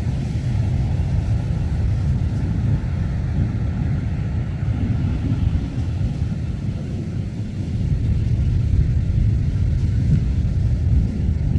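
Wind buffeting the microphone: a steady, loud low rumble that swells a little about eight seconds in.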